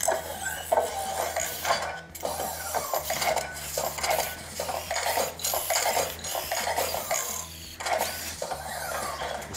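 Robosen Optimus Prime robot running through a pre-programmed axe move: its servo motors whir and its plastic parts clack in a busy run of short, uneven bursts.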